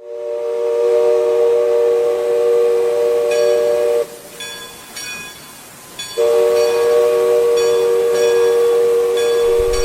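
Steam whistle of the Mark Twain riverboat blowing two long blasts, each a chord of several tones sounding together. The first lasts about four seconds; the second starts about two seconds after it ends.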